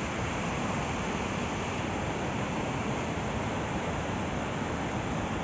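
Steady rushing of a river running over rocks, an even hiss with no breaks.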